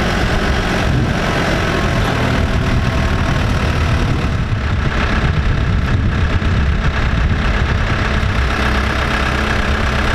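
A Case 580 backhoe loader's diesel engine running steadily.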